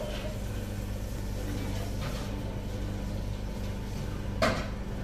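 Steady machine hum with a few fixed low tones, and a single sharp knock about four and a half seconds in.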